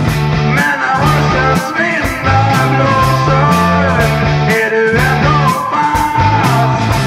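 Background music with a steady drum beat, about two beats a second, over a bass line and a melody.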